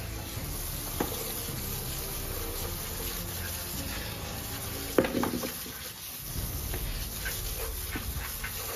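Water spraying from a garden hose nozzle over a longhorn skull and splashing onto wet concrete, a steady hiss, with a sharp knock about a second in and another about five seconds in.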